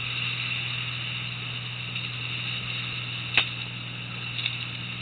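Boat engine running steadily under a hiss of water and wind, with one sharp knock about three and a half seconds in.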